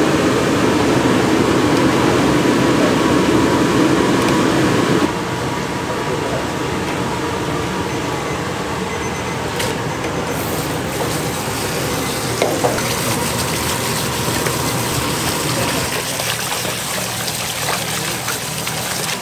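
Commercial kitchen sounds in several short takes: a steady rush like running water in the first few seconds, cutting off suddenly, then quieter steady kitchen noise with a few sharp clicks and clatters.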